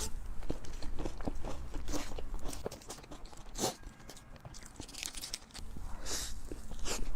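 A person biting and chewing crunchy food close to the microphone: a run of small crackly crunches, with a few louder bites and a quieter spell in the middle.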